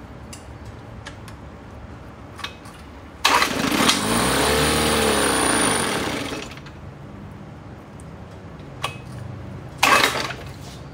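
A 1972 Johnson 6 hp two-cylinder two-stroke outboard fires up about three seconds in, runs for about three seconds with its pitch rising and falling, then stops. A short clatter follows near the end.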